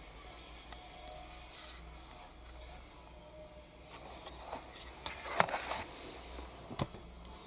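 Handling noise from a small diecast model car on its black plastic display base: light rubbing and scraping, then a few clicks and knocks as the base is set down on a table. The sharpest click comes about five and a half seconds in, with another near the end.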